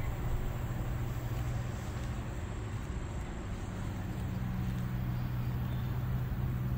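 Heavy construction equipment grading a building lot, its engine running with a steady low drone.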